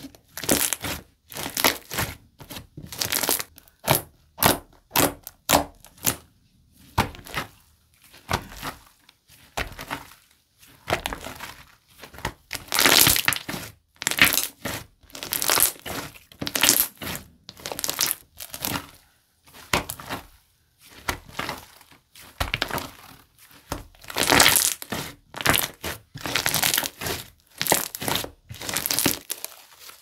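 Fluffy pink slime being squeezed and kneaded by hand. Each squeeze gives a short burst of sound, repeated about once or twice a second with brief pauses between.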